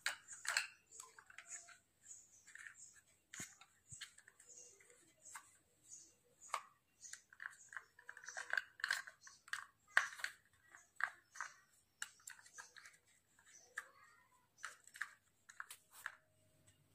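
Plastic wall-mount broom and mop holder being handled: faint, irregular light clicks and rattles as its plastic clips and hooks are flipped and moved by hand.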